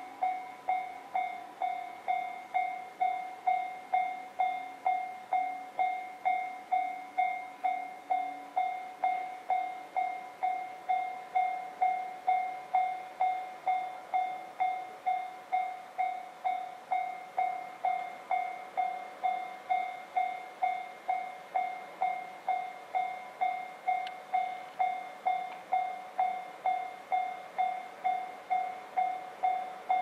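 Japanese railway level-crossing warning alarm ringing steadily, a bit under two strikes a second, each ringing note fading before the next: the signal that a train is approaching and the crossing is closed.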